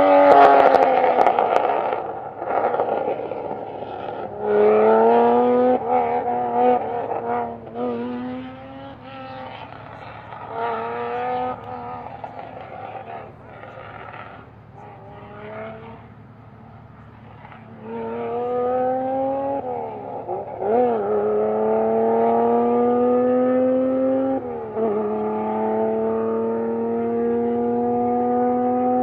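Supercar engine accelerating hard through the gears: the pitch climbs and then drops at each upshift, several times over, with a quieter stretch in the middle before another long pull.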